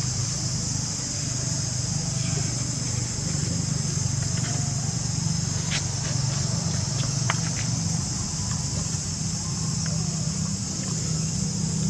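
Insects droning steadily in a high, even hiss over a low steady rumble, with a few short chirps and clicks around the middle.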